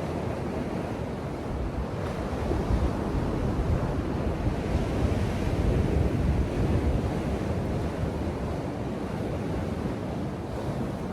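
Ocean surf washing onto a beach, a steady rushing noise that swells louder a couple of seconds in and eases off again, with wind rumbling on the microphone.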